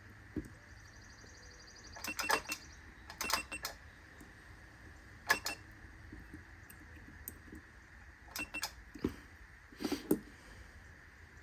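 Scattered sharp clicks and light metallic clinks of small hard objects being handled, coming in short clusters every second or two.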